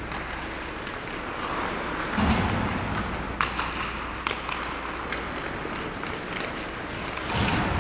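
Ice hockey play on rink ice: skate blades carving and scraping, with a low thud about two seconds in, a few sharp clacks of sticks on a puck, and a louder scrape near the end.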